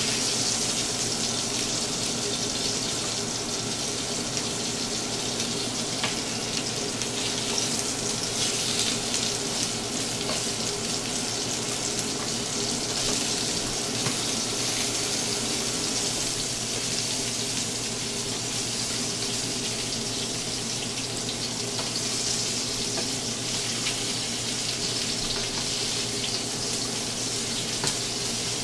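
Beef short ribs searing in hot olive oil in a frying pan: a steady sizzle as the meat seals and caramelizes. A faint click of tongs against the pan comes near the end.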